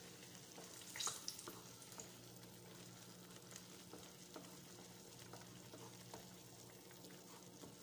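Red chili sambal sizzling faintly in a frying pan as it is stirred with a wooden spoon, with a few soft taps and scrapes of the spoon, the clearest about a second in. A steady low hum runs underneath.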